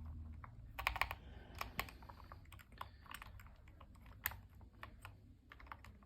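Mechanical keyboard switches in a switch tester being pressed and released: a scattered, irregular series of sharp clacks, the loudest clusters about a second in and past the middle.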